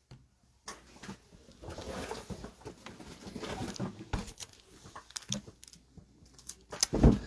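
Trading cards being handled and sorted on a table: irregular rustling with quick taps and clicks, and a louder knock just before the end.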